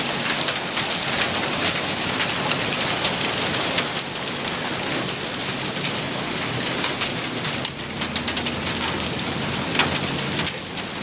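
Hail and heavy rain pelting hard surfaces: a dense, steady hiss full of sharp hits from hailstones striking.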